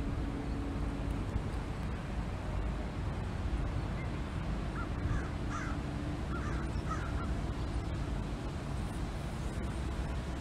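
Steady wind blowing over the open canal path, a noisy rush with a low rumble. About halfway through, a few short bird calls sound in the distance.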